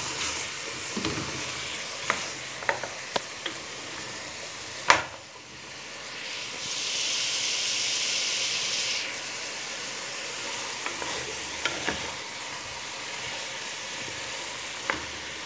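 Chicken pieces and diced vegetables sizzling as they fry in butter and oil in a pot, while a wooden spoon stirs them and knocks lightly against the pot now and then. The sharpest knock comes about five seconds in, and the sizzle swells for a few seconds around the middle.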